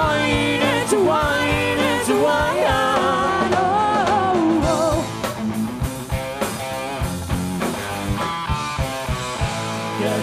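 Rock band playing live on guitars, bass, keyboard and drums, with a woman singing long held, bending notes over it. About five seconds in the singing stops and the band drops quieter into an instrumental passage of drum hits and guitar chords.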